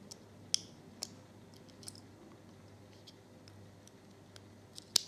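Small paper scissors snipping at the casing of a tiny radio-control receiver: a few sharp, isolated clicks, about half a second and one second in, again near two seconds, and a louder pair near the end.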